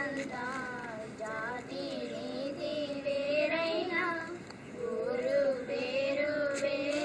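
Children's voices singing a song, with women's voices among them, in long held notes.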